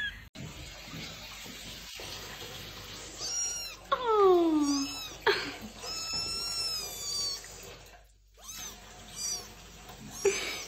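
Young kitten meowing over and over while being bathed in a sink of water, cries of protest at the bath. The calls are high and drawn out, one sliding down in pitch about four seconds in.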